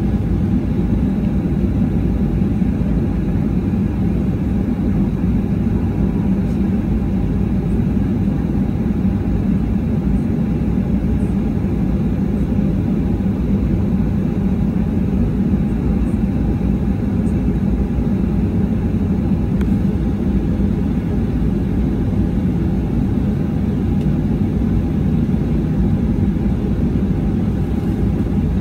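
Steady low rumble inside the cabin of a Boeing 737-800 while it taxis, its CFM56 turbofan engines running at taxi power.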